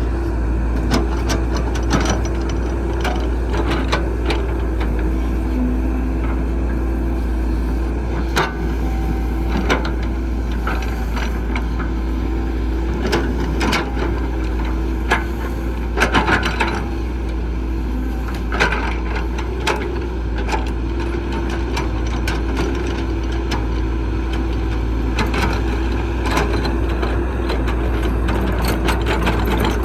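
Heavy construction machine running steadily with a deep rumble and a steady drone, with many short knocks and cracks throughout, loudest about sixteen seconds in.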